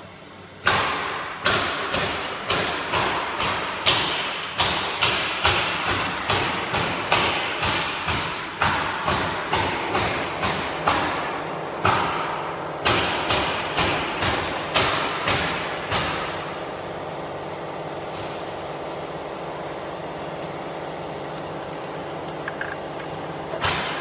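A quick series of sharp knocks, about two to three a second, each with a short ringing tail; about two-thirds of the way through they stop and a steady machine hum is left, and the knocks start again at the very end.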